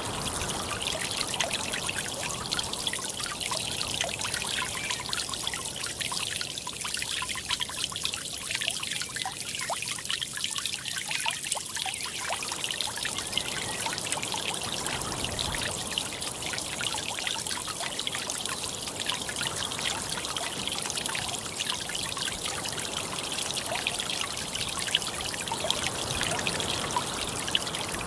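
Small mountain creek splashing and trickling over rocks, a steady rush of running water.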